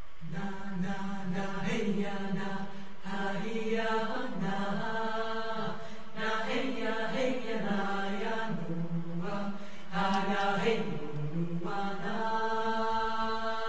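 Choral chant: many voices sing in phrases over a steady, held low note.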